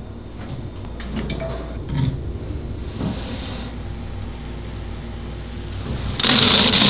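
A steel tumbling barrel handled in a sink with a few light knocks and clinks over a low steady hum. About six seconds in, a loud rush of faucet spray begins as the barrel's load of wet polishing pellets and metal pen parts is poured out into a wire colander.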